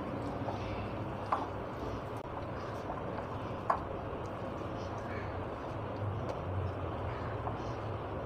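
Hands kneading soft, sticky maida dough in a glass bowl: quiet squishing over a steady low background hum, with two light taps against the glass, about a second and a half in and near four seconds.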